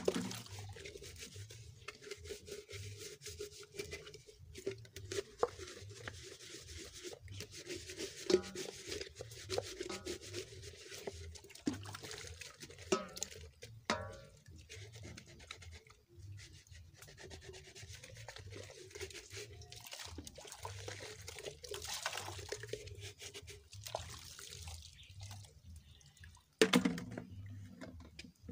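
Hand-washing a thermos flask and a sieve in a metal basin: steady scrubbing and rubbing, with water splashing and dripping as the items are rinsed. Now and then an item knocks against the basin, the loudest knocks at the very start and near the end.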